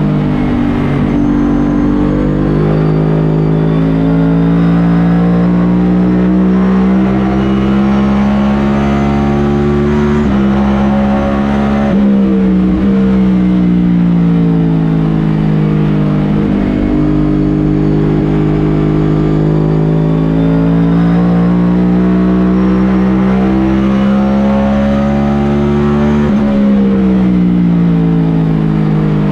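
NASCAR Cup car's V8 heard from on board at racing speed, its pitch climbing steadily under throttle, then dropping sharply about ten seconds in and again near the end as the driver lifts for the turns, before building again.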